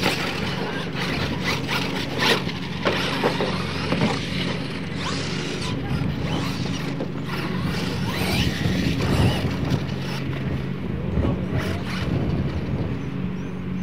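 Radio-controlled scale monster trucks racing on a dirt track, their motors running with short rising and falling whines. Several sharp knocks come in the first few seconds.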